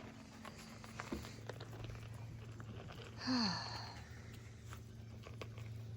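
Golden retriever puppies moving about, faint scattered ticks and rustles, with one short falling voice-like sound a little past three seconds in.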